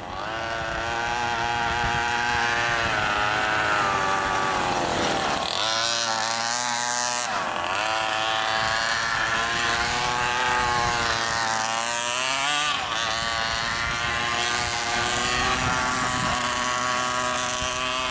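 27cc two-stroke gas engine of a large-scale RC monster truck running at high revs as it drives on pavement, the pitch dropping off and climbing back several times with the throttle.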